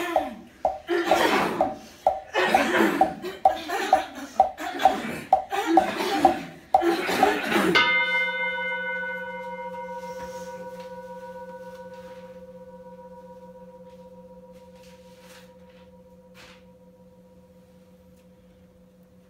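Several people clearing their throats in a quick rhythm, about two a second, as a song. About eight seconds in they stop short, and a Buddhist bowl bell (rin) is struck once and rings on with a steady tone that slowly fades away.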